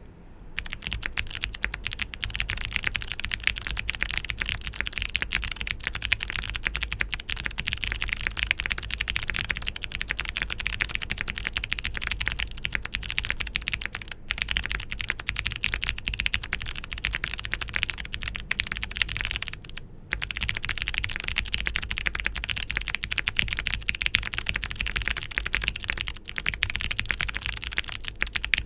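Typing on a mechanical keyboard with Gateron Melodic clicky switches (factory-lubed), an aluminium flex-cut plate and GMK keycaps: a dense, continuous run of crisp key clicks, with brief pauses about halfway through and about two-thirds through.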